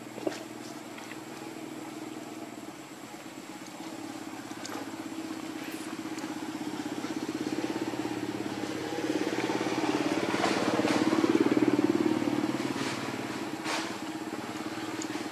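A motor vehicle engine running steadily, building up to its loudest about eleven seconds in and then easing off as it goes by. A sharp click comes just after the start, with a few fainter clicks later.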